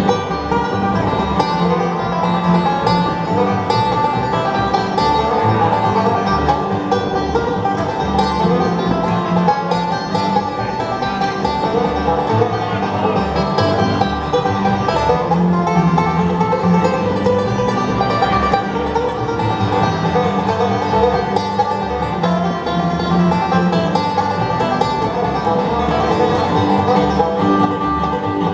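Bluegrass band playing live without singing: banjo and guitar picking over a walking bass line.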